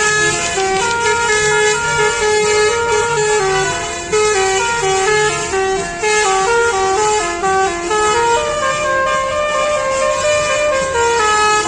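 Indonesian bus 'telolet' musical air horn playing a tune: a quick run of short notes stepping up and down in pitch, with brief breaks about four and six seconds in.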